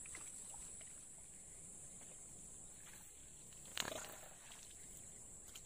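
A single sharp splash a little under four seconds in: a snakehead fish thrashing at the water's surface on the line. A steady high-pitched drone runs underneath.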